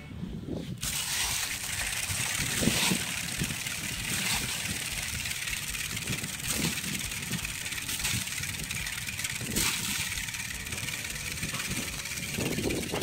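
Steady outdoor noise: wind rumbling on the microphone with a high hiss, and a few soft knocks.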